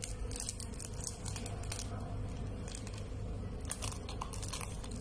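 Thin plastic wrapper crinkling and crackling in a run of small rustles as it is worked off a piece of modelling clay.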